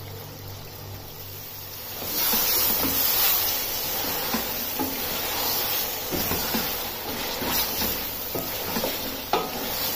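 A low hum, then about two seconds in a loud sizzle sets in as chunks of beef and bone fry in masala in a steel pot. A wooden spatula stirs and scrapes them, with occasional knocks against the pot. The meat is being browned in the spice paste.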